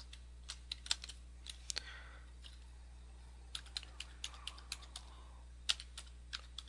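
Faint typing on a computer keyboard: scattered keystrokes, a pause of a second or two, then another run of keystrokes.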